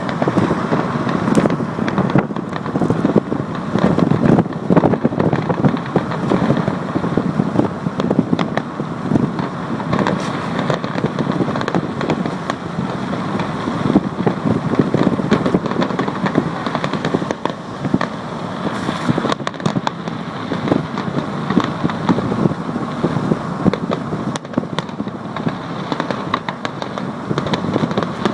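A fireworks display: a dense, continuous barrage of rapid bangs and crackling, with a few louder reports standing out, around four and fourteen seconds in.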